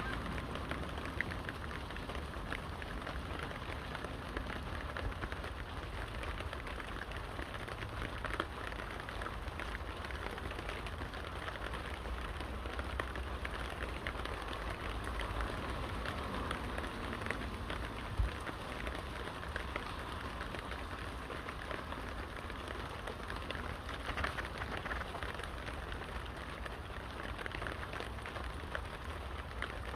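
Steady rain falling and pattering on surfaces, mixed with the crackle of firewood burning in a brick fire pit, with one sharp pop a little past halfway.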